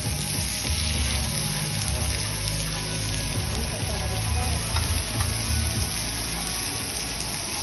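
Beef sizzling as it cooks, a steady hiss, with background music.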